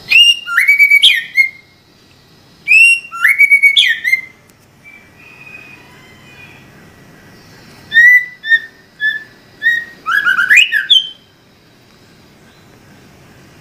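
White-rumped shama singing: loud whistled phrases that slide in pitch, then a run of short clipped notes about eight seconds in and a fast tumbling phrase just after ten seconds. The song stops about eleven seconds in.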